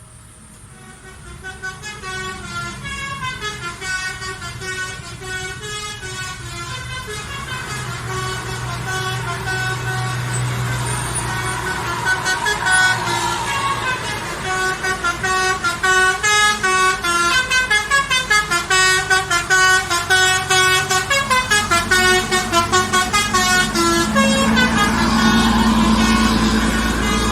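Basuri telolet bus horn playing a fast melodic tune of stepped musical notes over a running engine. The tune grows louder, and in its second half the notes pulse rapidly, several times a second.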